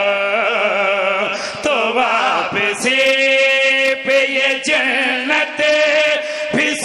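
A zakir's amplified devotional chant: one man's voice singing a refrain in long, wavering held notes, broken briefly about two seconds in before one long held note.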